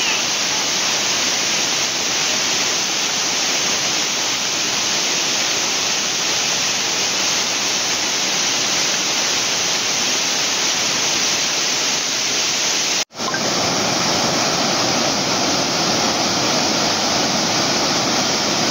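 Floodwater rushing over a waterfall and down a swollen stream in spate, a steady, even rush of water. It drops out for an instant about thirteen seconds in, then carries on.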